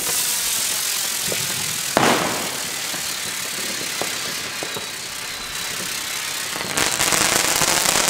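Xplode Crackling Bird firework flyer hissing steadily as it climbs, with a single sharp bang about two seconds in. About seven seconds in it ends in its crackling burst: a dense, very loud crackle lasting a couple of seconds.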